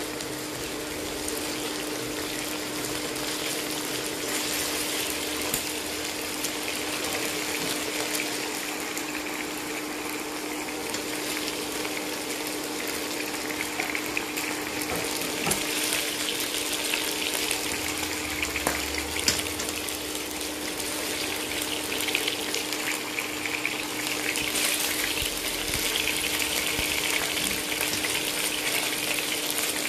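Chicken pieces frying in hot olive oil in a nonstick pan: a steady crackling sizzle, with a few light clicks and a steady hum underneath.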